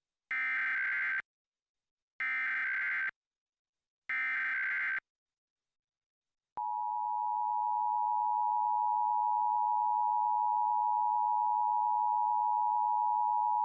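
Emergency Alert System header: three short bursts of SAME digital data, each a harsh buzzy screech under a second long, spaced about two seconds apart. After a gap of about a second and a half, the steady two-tone EAS attention signal begins and holds, announcing a Required Monthly Test.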